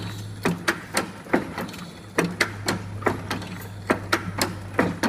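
Three-side seal bag-making and cutting machine running, its sealing and cutting mechanism clacking repeatedly, often in close pairs, about twice a second over a steady motor hum.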